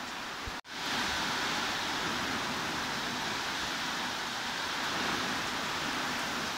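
Steady hiss of heavy rain. It drops out for a split second about half a second in and comes back slightly louder.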